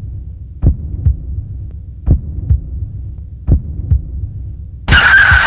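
Slow heartbeat sound effect: three double thumps, about 1.4 s apart, over a low steady hum. Near the end a car speeds off with a squeal of tyres.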